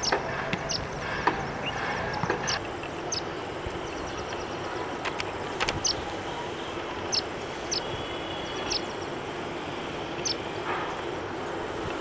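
Indian silverbills (white-throated munias) giving short, sharp, high peeps at irregular intervals, roughly one a second, over a steady background rumble.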